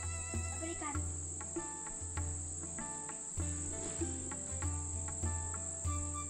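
A steady high-pitched insect drone over soft background music with held notes and a low bass line.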